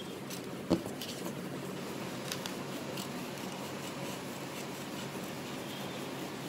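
Scissors snipping through a pastel paper sheet, a scatter of short, quiet cuts over a steady low room hum. A sharper knock just under a second in is the loudest sound.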